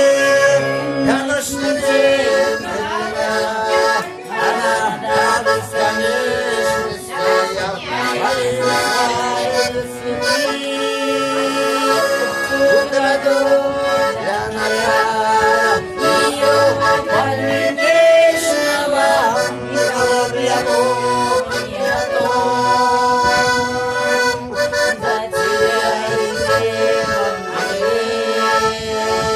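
Accordion playing an instrumental tune: a melody over sustained chords, with short bass notes repeating underneath.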